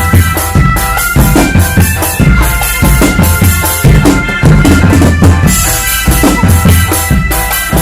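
Drum band playing loudly: bass and snare drums beat a fast, dense rhythm with a melody over it.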